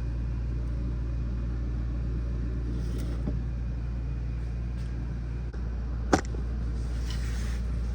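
Steady low hum, with a faint tick about three seconds in and one sharp click about six seconds in.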